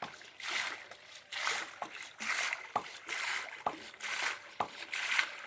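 Water splashing and sloshing in a steady rhythm, about once a second, with a sharp knock in several strokes, as a bamboo lever works a boring pipe up and down in a water-filled hole to sink a hand-made tube well.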